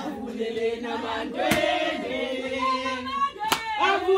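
A group of people singing together in chorus, several voices holding long notes, with two sharp claps in the middle of the song.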